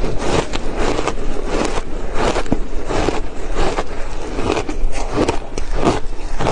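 Crushed ice being chewed close to the mouth: a rapid, continuous run of crisp crunching bites.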